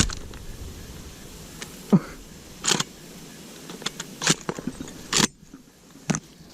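Shotgun being handled and its action worked during a run of misfires: several sharp metallic clicks and clacks, spaced about a second apart.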